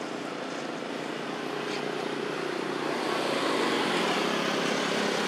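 Engine drone of passing road traffic: a steady hum that grows louder from about halfway through.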